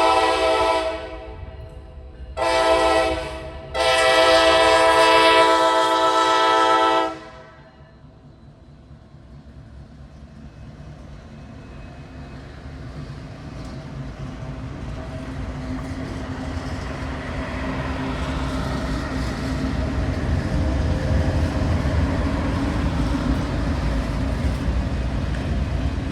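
Diesel freight locomotive air horn sounding the close of a grade-crossing signal: a long blast ending about a second in, a short blast, then a final long blast ending around seven seconds in. The low rumble of the lead locomotives' diesel engines and the rolling train then builds and holds steady as the train draws alongside.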